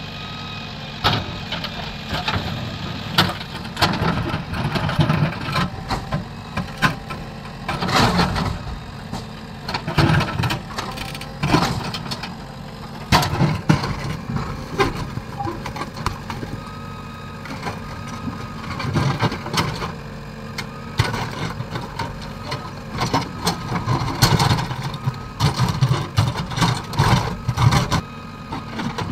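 JCB 3DX backhoe loader's diesel engine running under load as the backhoe bucket digs into stony ground, with repeated knocks and scrapes of rock against the bucket.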